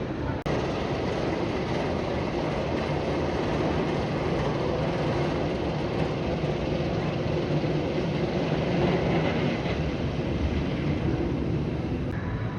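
Roller coaster train of an RMC hybrid coaster running empty on a test cycle: a continuous low rumble of the train travelling along its track, a little louder around the middle, with a brief break about half a second in.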